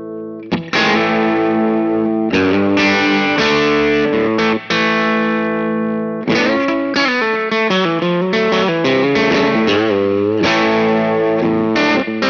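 Electric guitar played through a Pettyjohn Edge overdrive pedal with the gain at about noon, pushing a clean tube amp into mild crunch. A Telecaster on its hotter bridge pickup plays a held chord, then from about half a second in strikes a run of chords and single notes, some of them bent, with spring reverb.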